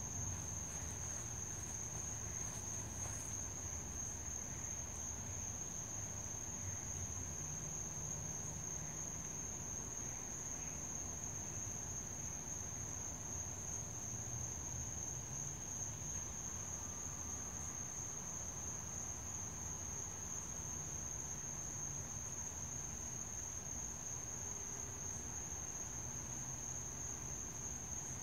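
Night insects trilling in one steady, unbroken high-pitched note, over a faint low rumble.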